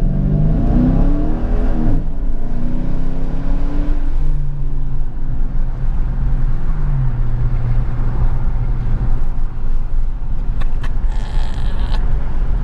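A 2014 Dodge Challenger R/T's 5.7-litre Hemi V8, fitted with a new cold air intake, accelerating hard from a standstill. Its revs climb steeply, drop sharply about two seconds in, climb again, then settle into a steadier lower drone as it eases off.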